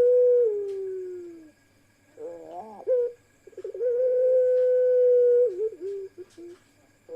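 Puter pelung doves, a long-voiced breed of barbary dove, cooing. A long held coo slides down in pitch and fades over the first second and a half. A short wavering coo comes a couple of seconds in, then another long steady coo that dips at its end, then a few short notes near the end.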